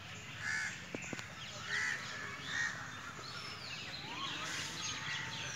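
Birds calling outdoors: three short calls about a second apart, then quick high chirps from small birds near the end.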